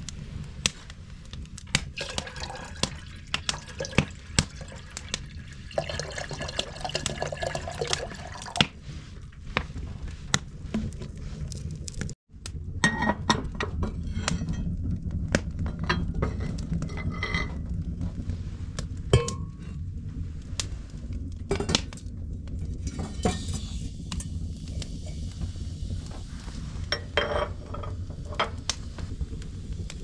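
Metal clanks, knocks and clinks from working a small cast-iron wood stove: the round cooktop lid lifted off with its lifter and an enamel coffee pot set down in the opening. A steady low rumble runs underneath.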